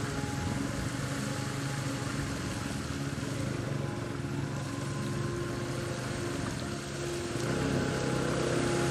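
Bajaj Pulsar NS200's single-cylinder engine running while riding. It gets louder about seven and a half seconds in.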